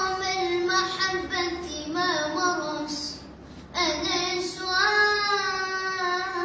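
A child singing solo and unaccompanied in a high voice, long ornamented notes that glide in pitch, with a short pause for breath about three seconds in.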